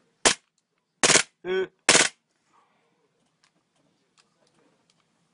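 Gas airsoft Glock 18 pistol firing on full auto: three short bursts in the first two seconds, with a short pained voiced cry between the second and third. After that, only a few faint clicks.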